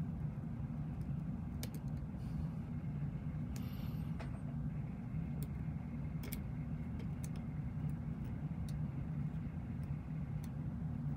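A steady low hum, with a few faint small clicks of metal tweezers handling the drone's small parts and connectors.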